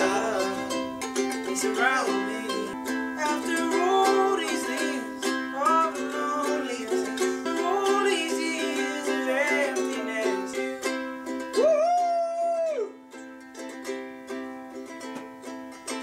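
Ukulele being strummed, with a man's voice singing along over it without clear words, holding one long high note about twelve seconds in.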